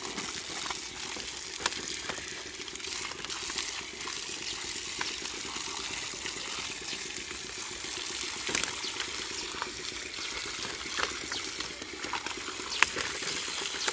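A stream of water pouring and splashing steadily onto a heap of fish in a net, with a few sharp knocks or slaps in between, the loudest near the end.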